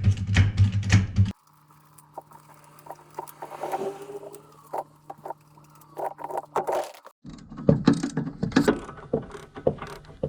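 Metal hand tools clicking and clanking on a car's front brake and wheel assembly during brake removal, with a dense run of quick ratchet-like clicks from about seven seconds in.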